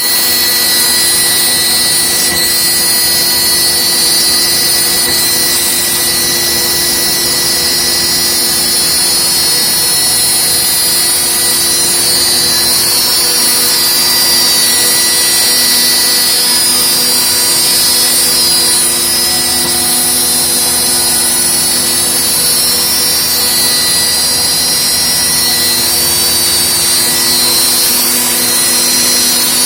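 CNC machine running steadily, its spindle giving a loud, high whine with several held tones over a hiss of cutting noise.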